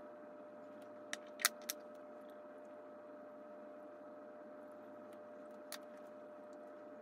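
Quiet room tone with a faint steady hum, broken by small sharp clicks: three in quick succession about a second in and a single one near the end.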